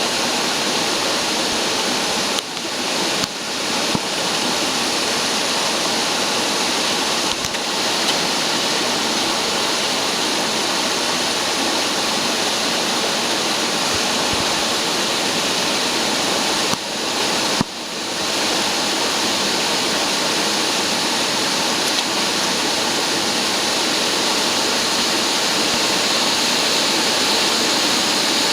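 Vacuum cleaner for duct cleaning running, a steady loud rush of air, with a few brief dips in level near the start and about two-thirds of the way through.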